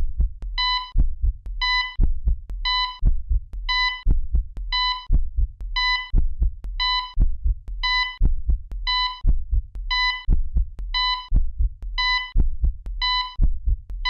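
Electronic beep repeating about once a second, like a heart-rate monitor, over low thumping heartbeat-like pulses: a medical-themed sound effect track.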